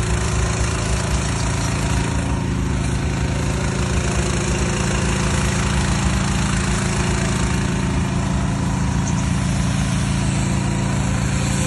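Van-mounted 3-in-1 hot-water/steam pressure washer unit running steadily in hot-water mode, a low, even mechanical hum with hiss above it.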